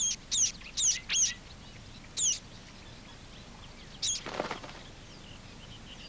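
Reed warblers calling: short, high, thin chirps, four in quick succession over the first second and a half, then single chirps about two and four seconds in.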